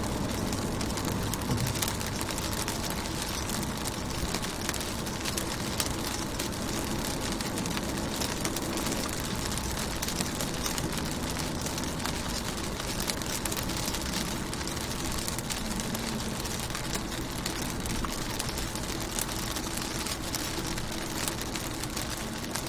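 Rain on a car window, heard from inside the car: a steady patter of many small drop ticks over a constant hiss, with a steady low rumble underneath.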